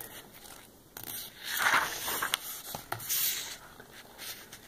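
Pages of a hardbound art booklet being turned: the clear printed overlay sheet slides and rustles, loudest about a second and a half in, followed by a few light taps and clicks of paper.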